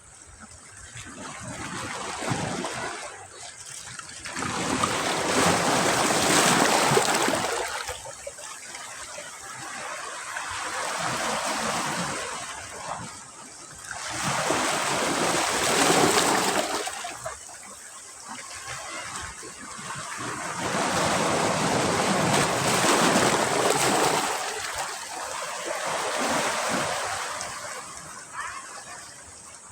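Sea waves breaking on the beach, each rush of surf building and fading over a few seconds, about five in a row.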